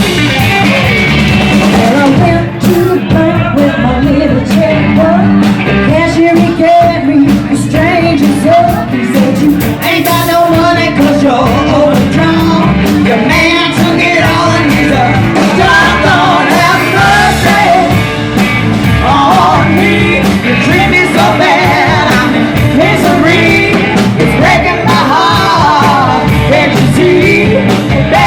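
Rock and roll song with a singer over electric guitar, bass and drums, playing loud and continuous throughout.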